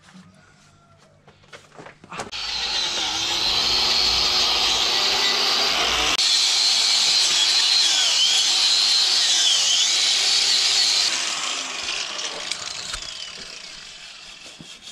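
A power tool starts about two seconds in and runs loudly for some nine seconds, its high whine dipping in pitch a couple of times, then fades out.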